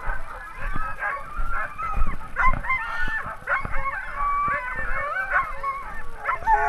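A team of sled dogs barking, yelping and howling together, many voices overlapping.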